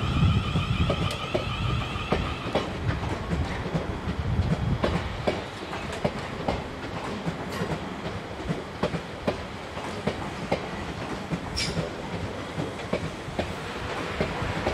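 A South Western Railway Siemens Desiro electric multiple unit passing over a low rumble, with a pulsing electric motor whine for the first couple of seconds. Then comes a run of wheel clicks over rail joints, roughly two a second, and one brief sharp squeak about three-quarters of the way through.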